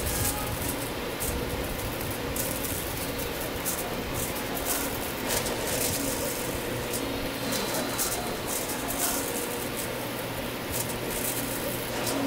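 Aluminium foil crinkling and crackling in irregular bursts as gloved hands fold it around a toast sandwich, over a steady low mechanical hum.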